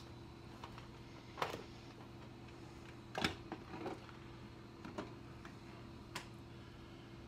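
Plastic lid being handled and pressed onto a clear plastic food container: a handful of light clicks and knocks, the loudest about three seconds in, over a steady low hum.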